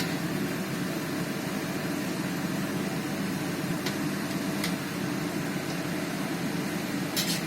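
Gujiya deep-frying in hot ghee: a steady sizzle with a few sharp pops of the fat, the loudest about four seconds in and near the end.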